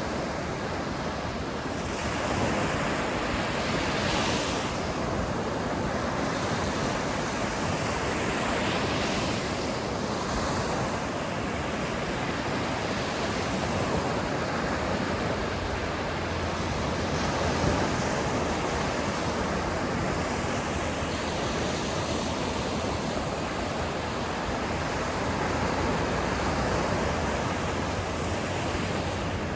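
Ocean waves washing onto a beach, a steady surf noise that swells gently every few seconds, with some wind on the microphone.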